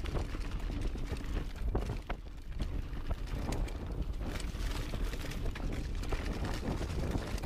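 Mountain bike ridden fast down a dirt forest trail: wind buffeting the camera microphone and tyres rumbling over the ground, with many irregular clicks and rattles from the bike over the bumps.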